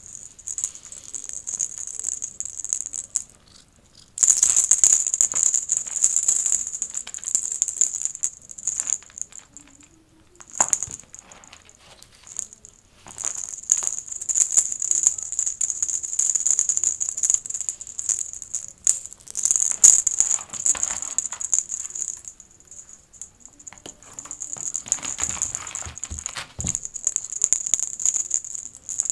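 Rapid rattling in bursts several seconds long, with short pauses between them.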